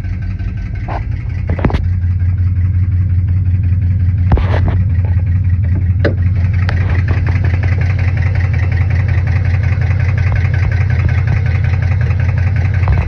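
Chevrolet Camaro SS's 6.2-litre V8 idling steadily with a fast, regular ticking knock in time with the engine, which the owner suspects is either rod knock or a lifter. A few separate sharp clicks come in the first six seconds.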